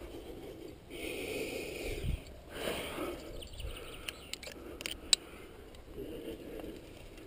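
Climbing gear and hands rubbing and scraping against rock close to a helmet-mounted microphone. A few sharp metallic clicks come about four to five seconds in, the loudest near five seconds, as a quickdraw's carabiner is clipped into a bolt hanger.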